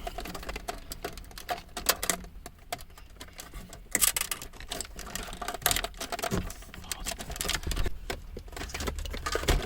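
Plastic clicks and rattles of wiring connectors being unplugged and handled at the back of a Mercedes-Benz COMAND head unit: a string of short sharp clicks, with louder ones about two, four and six seconds in.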